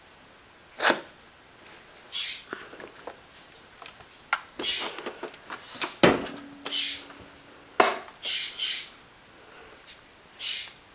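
A cat batting at magnets on a hard surface: sharp clicks and knocks, the loudest about six seconds in, between short scraping rustles.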